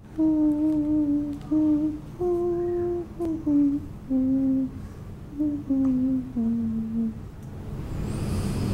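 A woman humming a slow, lullaby-like tune: a string of held notes that step mostly downward in pitch. Near the end, swelling music fades in underneath.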